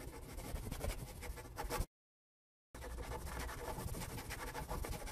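Marker pen scratching across a whiteboard in two stretches, broken by a sudden cut to dead silence of under a second about two seconds in.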